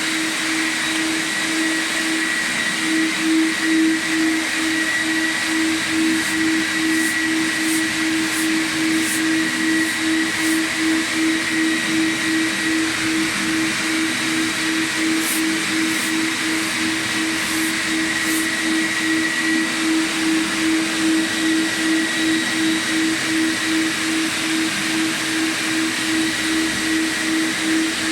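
Quadro floor sanding machine running steadily on coarse grit-70 diamond discs, grinding old mosaic parquet. It gives a loud hum that pulses regularly, over a steady high whine and a grinding hiss.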